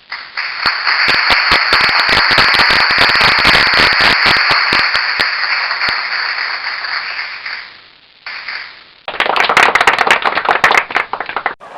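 Crowd applause, many hands clapping at once, fading out about eight seconds in. After a brief fragment, a second burst of applause starts abruptly about nine seconds in and cuts off suddenly near the end.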